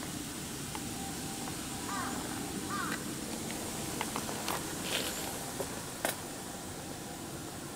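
Handheld camera being swung and carried along a path, with handling rustle and several sharp clicks and knocks between four and six seconds in. Two short high chirping calls come about two and three seconds in.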